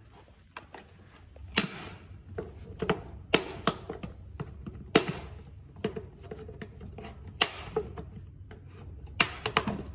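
Irregular sharp clicks and light knocks of small tools and parts being handled, about a dozen in all, with a quick cluster near the end.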